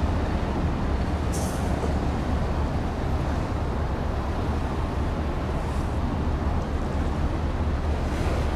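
Steady low rumble of a container ship passing under way, with brief faint hisses about a second and a half in and again near the end.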